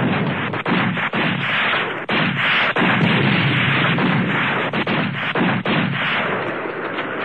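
Continuous heavy gunfire and explosions, dense and unbroken apart from a few brief gaps.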